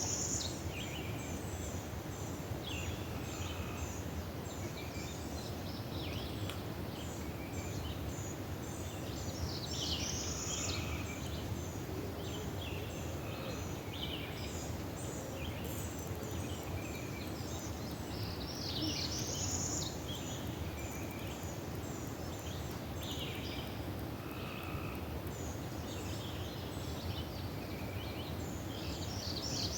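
Birds singing: a constant run of quick high chirps, and a louder sweeping song phrase that repeats about every nine seconds. Under them is a steady low rumble of background noise.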